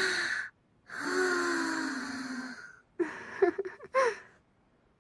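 Young women's voices blowing softly into the listener's ear: two long, breathy exhalations, then a few short, voiced breaths about three seconds in.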